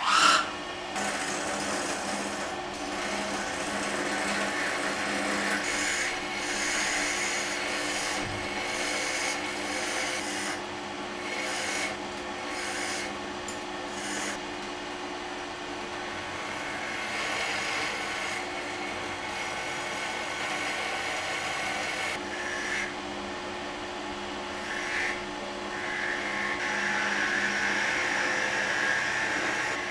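Wood lathe switched on and running with a steady hum while a hand-held turning tool cuts into the spinning wooden blank, a rough scraping that comes and goes and grows louder near the end.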